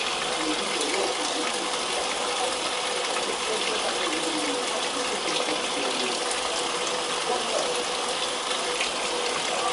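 Brastemp BWL07A top-loading washing machine at the start of its wash, water gushing steadily into the drum, with a faint steady hum.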